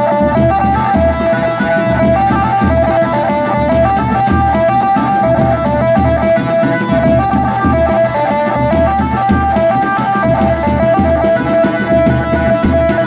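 Wedding band (band baja) music: a short lead melody that repeats, with a plucked-string sound, over a steady drum beat.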